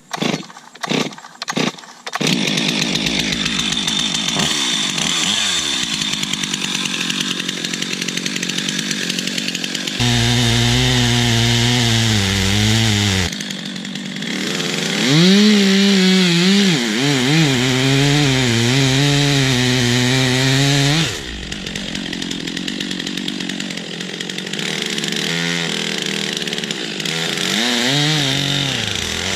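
Gas chainsaw engine running and cutting wood, its pitch rising and dipping as it takes load in the cut. A few short blips of the engine come in the first couple of seconds.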